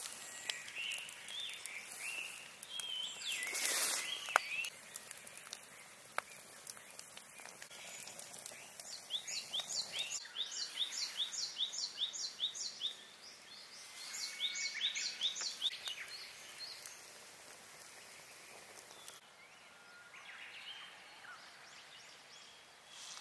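Outdoor ambience with birds singing: scattered high chirps, and two rapid runs of repeated high notes, about five a second, near the middle.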